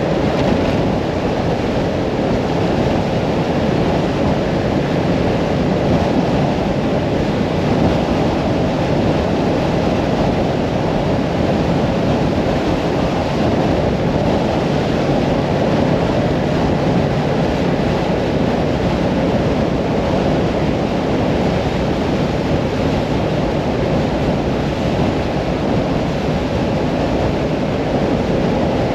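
Mirage 650 motorcycle running steadily at cruising speed, its engine mixed with heavy wind rush on the microphone.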